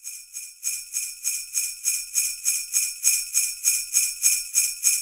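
Sleigh bells shaken in a steady rhythm, about three shakes a second, fading in over the first second.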